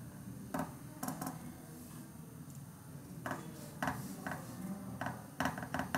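Quiet room tone with scattered short clicks or taps, about ten at irregular spacing, over a faint low hum.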